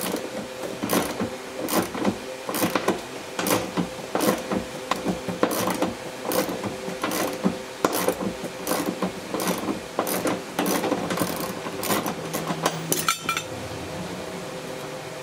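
Hand ratchet with a deep-well socket clicking in quick, uneven strokes, about two to three clicks a second, as it runs a nut off a seat-mounting stud. The nut turns easily because the stud was sheltered inside the vehicle and has not rusted. The clicking stops about 13 seconds in.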